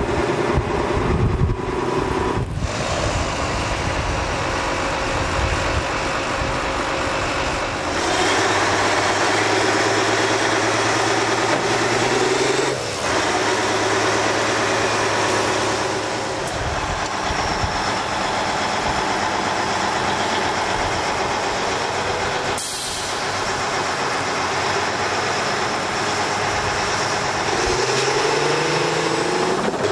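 Heavy diesel engine of a Faun SLT 50 8x8 tank transporter running steadily under load while it hauls a laden trailer through sand. Near the end the engine note rises as it revs.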